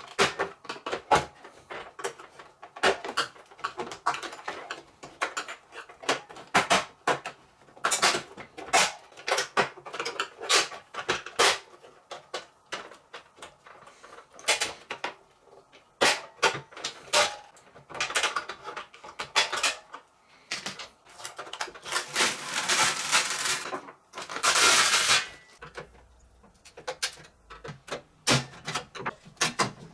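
Irregular clicks, knocks and clatter of hard parts being handled while a microwave oven is taken apart, with two longer scraping noises about 22 and 25 seconds in.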